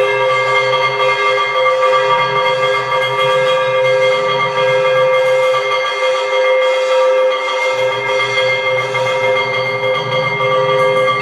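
Temple bell rung continuously during the lamp offering to the deity, a steady, dense ringing of overlapping bell tones. Beneath it runs a lower hum that drops out for about a second around seven seconds in.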